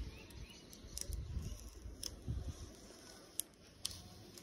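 Faint handling sounds of a vinyl decal being rubbed onto a motorcycle's painted metal fuel tank and its clear transfer tape peeled off: light rustling with a few small clicks.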